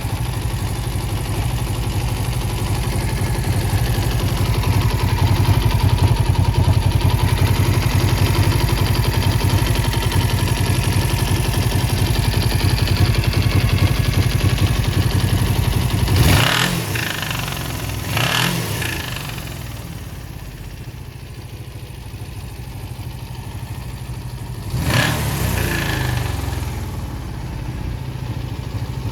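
A Suzuki GSX400E parallel-twin engine runs steadily at idle. There are brief throttle blips about halfway through, again a couple of seconds later, and once more near the end. The seller reports an abnormal noise from the engine's bottom end that needs repair.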